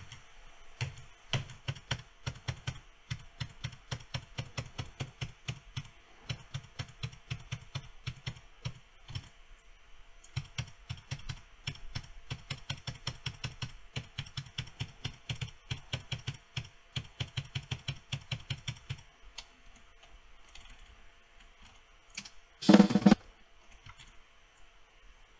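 Computer keyboard keys tapped in a fast, steady run, several clicks a second, each with a light thud, stopping about three quarters of the way through. Near the end, one loud hit sounds on its own.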